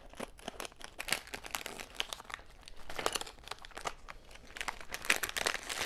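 Plastic LEGO minifigure blind bag crinkling as it is cut open with scissors and then pulled open by hand, an irregular run of crackles.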